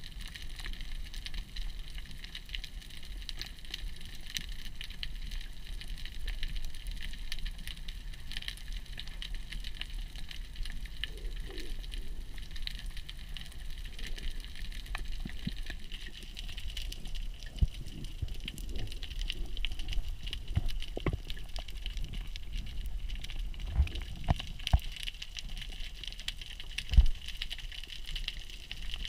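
Underwater ambience picked up by a camera in a housing: a steady dense crackle of tiny clicks over a low rumble, with a few dull knocks in the second half.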